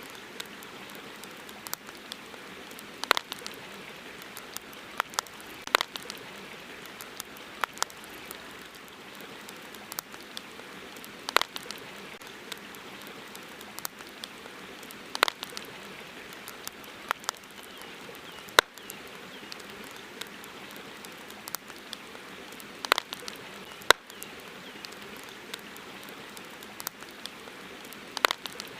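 Campfire crackling, with sharp, irregular pops and snaps, a few of them loud, over a steady hiss.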